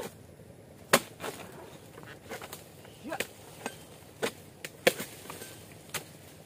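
A steel harvesting blade on a long pole chopping into the tough base of an oil palm's fronds. About a dozen sharp, uneven strikes come at roughly one to two a second.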